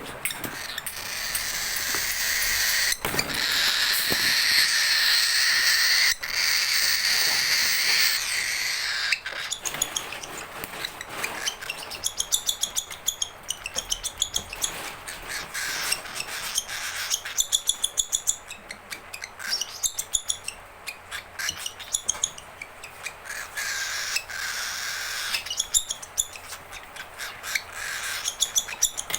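A baby cockatiel giving hungry food-begging calls: one long unbroken hoarse call for about the first nine seconds, then many quick short rasps and chirps.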